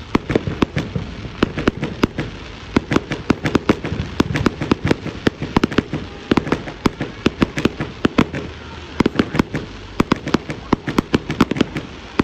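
Fireworks going off: a rapid, irregular string of sharp bangs and crackling pops, several a second.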